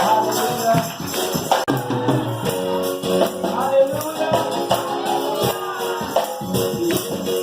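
Gospel praise music with a tambourine keeping a steady beat under sustained keyboard or organ chords and some singing.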